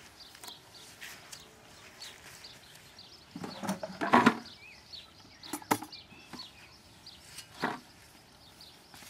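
A steel spade cutting into lawn turf and soil. The loudest crunching scrape comes about four seconds in, then a couple of sharp knocks and another short scrape near the end. Birds chirp faintly in the background.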